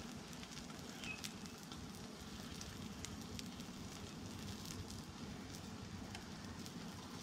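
Propane burners of a Blackstone flat-top griddle running on high: a steady, faint rush of flame with scattered light ticks and crackles.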